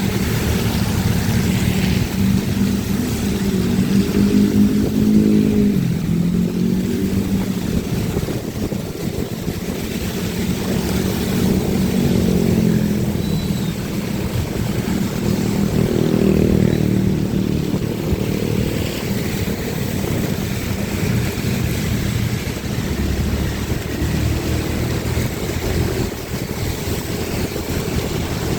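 Motorcycle engine running while riding, its note rising and falling several times as the throttle opens and closes, over a steady hiss of wet road and wind.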